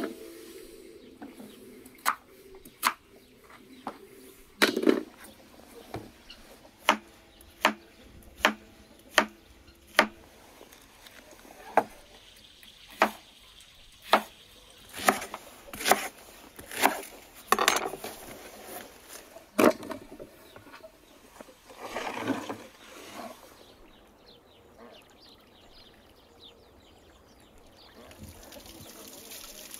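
Kitchen knife cutting vegetables on a wooden cutting board: sharp single chops at about one a second, a few in quick succession, stopping about two-thirds of the way through.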